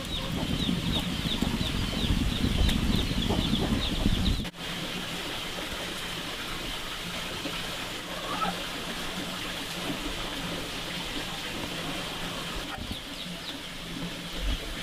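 Farmyard ambience with birds chirping in quick repeated calls and chickens clucking, over a low rumbling background for the first few seconds. Near the end come small splashes as soaked split mung beans and their water are poured from a scoop into a metal pot.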